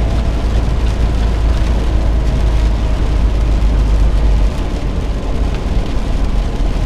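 Steady low drone of a 2013 International ProStar semi truck's engine heard inside the cab, with road and tyre noise on wet pavement; the deep rumble drops noticeably about four and a half seconds in.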